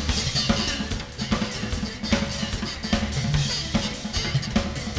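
Live rock drum kit playing a steady beat of kick and snare hits, with an electric bass underneath.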